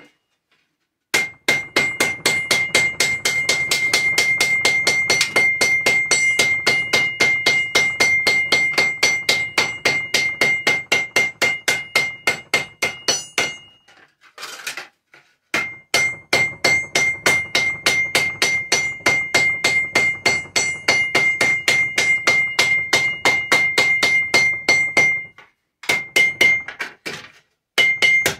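A hammer rapidly beating cut tin-can metal flat, several ringing metallic strikes a second in two long runs with a short pause between, then a few shorter bursts near the end.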